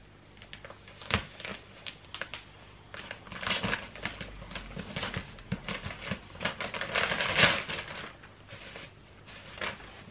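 Clear plastic wrapping on a rolled, vacuum-packed mattress topper crinkling and snapping as it is cut and pulled open by hand with a small cutter. The rustles come in irregular bursts, loudest about three quarters of the way through.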